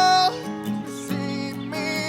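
Music with strummed acoustic guitar under a sung melody; a held, wavering vocal note ends just after the start and the voice comes back near the end.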